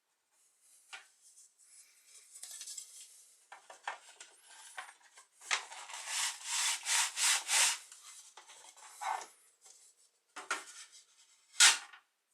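Boilie rolling board sliding back and forth over dough sausages, rolling them into balls: rubbing and scraping, with a quick run of about five strokes in the middle. A sharp click near the end.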